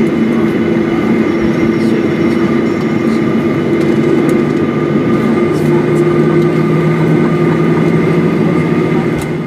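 Cabin noise inside a Boeing 737-800 taxiing, heard from a seat over the wing: its CFM56-7B turbofan engines hum steadily at taxi power, with several tones held over the rush of air. A lower tone joins about halfway through.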